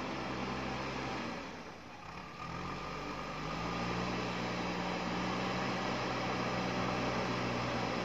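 JCB backhoe loader's diesel engine running, dropping briefly about two seconds in, then revving up and holding a higher, steady pitch as the backhoe arm and bucket are worked to drag the machine out of deep mud.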